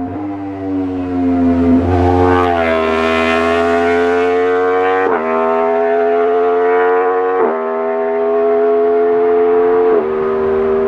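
2016 Yamaha R1's crossplane inline-four through an Austin Racing GP1R decat exhaust, running hard at high revs. Its pitch steps abruptly about every two and a half seconds, as it would at gear changes.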